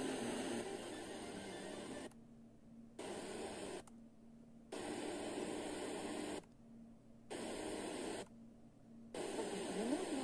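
FM radio tuner hissing with static between stations, on frequencies with no clear signal. The hiss drops out for about a second four times, as the tuner mutes at each tuning step.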